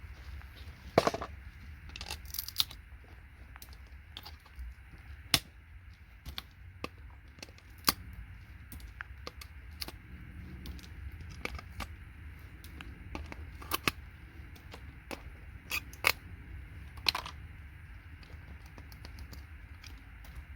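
Hand tools working on scrap circuit boards: irregular sharp clicks and metallic knocks as parts are pried, snapped and knocked off, a dozen or so strikes spread unevenly, some ringing briefly.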